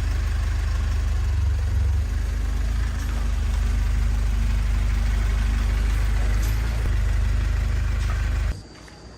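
Restored rice milling machine running steadily with a loud, low drone that cuts off suddenly near the end.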